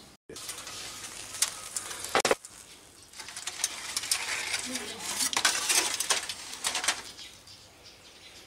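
Aluminium foil crinkling and crackling in bursts as a foil tent is peeled off a roasting leg of goat.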